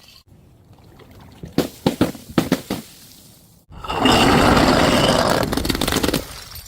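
A few light glass clinks and ticks, then an abrupt cut to about two seconds of loud, steady rushing noise like liquid pouring or splashing out, which drops away near the end.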